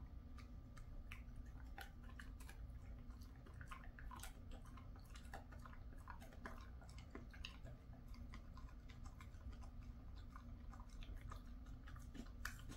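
A Jindo dog chewing a strip of dried chicken breast jerky: faint, irregular clicks and ticks of teeth working the meat.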